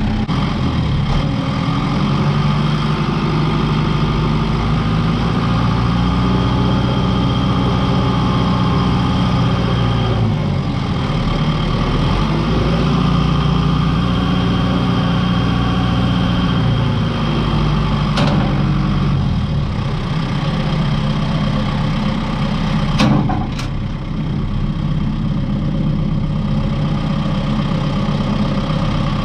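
Kubota M6060 tractor's diesel engine running with its revs rising and falling, then dropping to a steadier, lower idle about two-thirds of the way through. A few sharp knocks are heard near the end.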